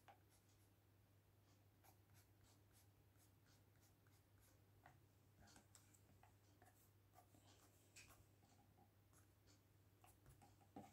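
Graphite pencil scratching on paper in short, quick strokes, very faint and irregular.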